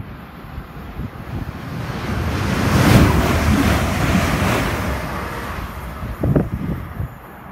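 A London Northwestern Railway electric multiple unit passing close at speed: a rush of air and wheel noise that builds, peaks about three seconds in and fades away. The train's slipstream buffets the microphone, with a short burst about six seconds in.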